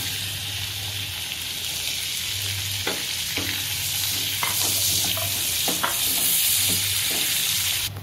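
Chopped onions sizzling in hot oil and butter in a kadhai: a steady frying hiss with a few light clicks, growing louder in the middle and cutting off suddenly just before the end.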